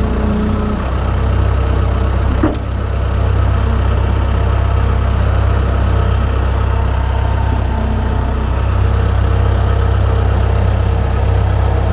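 Bobcat 853H skid steer's engine running steadily, with a short sharp knock about two and a half seconds in.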